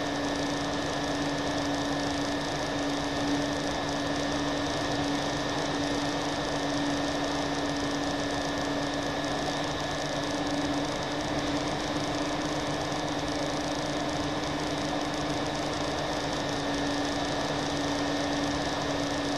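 Twin-engine FPV model airplane in flight, heard from its onboard camera: the motors run at a steady pitch, a hum with a thin high tone over an even wind rush.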